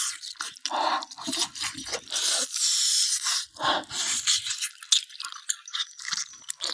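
Eating sounds: biting, chewing and gnawing soft braised pork trotters, in irregular bursts.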